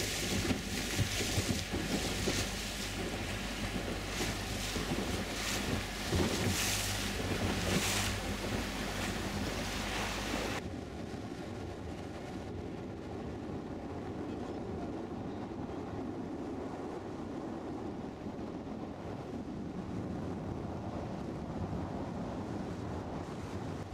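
A motorboat under way at sea: a steady engine hum and water rushing along the hull, with wind buffeting the microphone in gusts. About ten seconds in, the wind buffeting stops abruptly, leaving a quieter steady engine drone and water noise.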